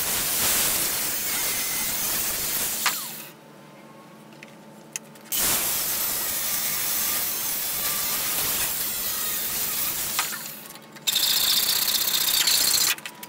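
Angle grinder with a cutting disc cutting into a cast-iron PTO-shaft universal-joint yoke. It stops about three seconds in and winds down, cuts again from about five to ten seconds in, and near the end a louder, harsher sound of a blade sawing across the work.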